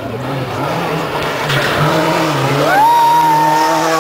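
Rally car engine revving hard as the car accelerates, its pitch climbing steeply about two and a half seconds in and then holding at high revs, over a low wavering drone.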